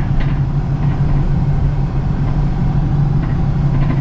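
Car engine and road noise heard from inside the moving car, a steady low drone.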